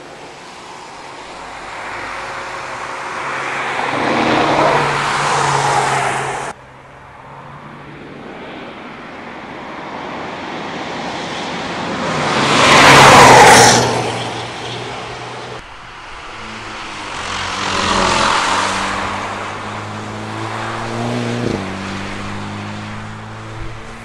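A Hyundai Kona N's 2.0-litre turbocharged four-cylinder engine driven hard past on a track: three pass-bys that each swell and fade, the first cut off abruptly, the loudest about 13 seconds in. Near the end the engine note steps in pitch as it shifts gears.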